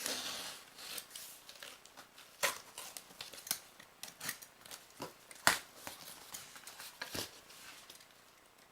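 A shipping package being opened by hand: rustling and tearing of packaging, with a run of sharp clicks and snaps. The loudest snap comes about five and a half seconds in.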